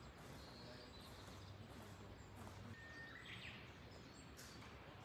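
Quiet outdoor ambience near silence, with a couple of faint bird chirps, one about half a second in and one about three seconds in.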